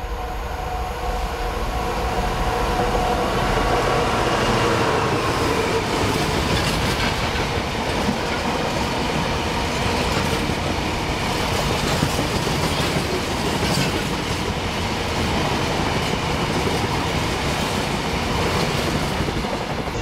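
A diesel-hauled freight train passing close by. The locomotive's engine is heard in the first few seconds, then a long rake of loaded open box wagons rolls past, with a steady rumble and the clatter of wheels over rail joints.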